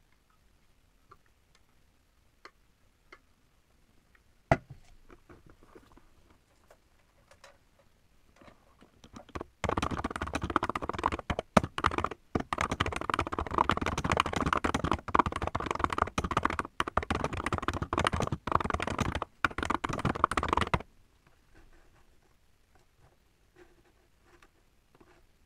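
Typing on a mechanical keyboard: a few light, scattered keystrokes, then a fast, dense run of clattering keystrokes from about ten seconds in that stops about twenty-one seconds in, followed by a few light taps.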